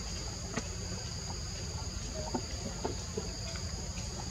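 Steady high-pitched insect drone at two pitches, with scattered faint ticks and short chirps over it.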